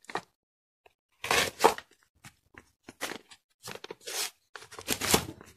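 Brown wrapping paper of a parcel being cut with a small blade and torn open, in short irregular rasping bursts of paper noise.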